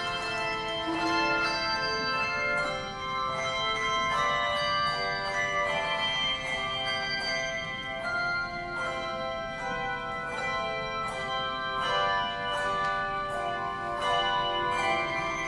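Handbell choir playing a piece: many handheld bells struck in turn, each tone ringing on and overlapping the next.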